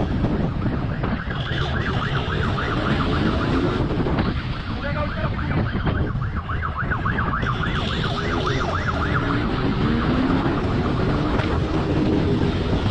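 Police siren wailing in a fast warble over the steady rush of wind and motorcycle engine noise; the siren is strongest in the first half and fades after about seven seconds.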